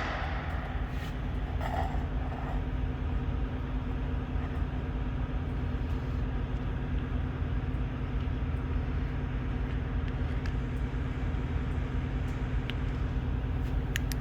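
A steady, low engine hum, like a diesel idling, with a couple of light clicks near the end.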